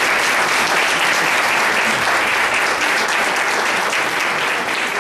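Audience applauding steadily, a dense patter of many hands clapping in a hall after a speech ends.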